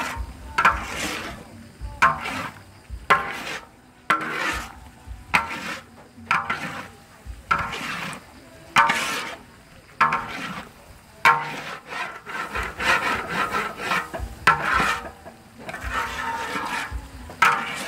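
Metal spatula scraping around a large steel wok as a thick paste is stirred: repeated rasping strokes, about one a second.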